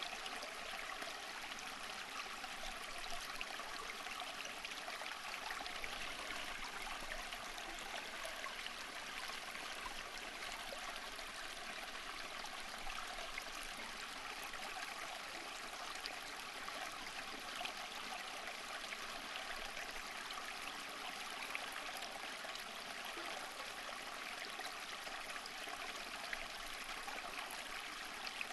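Running water of a stream, a steady, even babbling rush that does not change.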